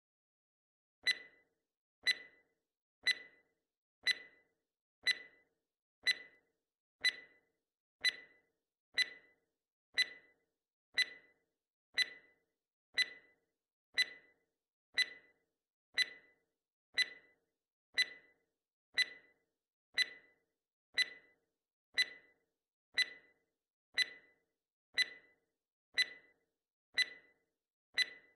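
Quiz countdown-timer sound effect: a sharp, briefly ringing tick once a second, starting about a second in.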